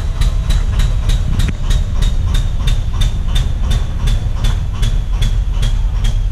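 Alsthom diesel locomotive's engine idling with a deep rumble and a sharp metallic tick repeating about four times a second, each tick carrying a brief ringing tone. An abnormal noise of unknown cause, which goes with black exhaust smoke.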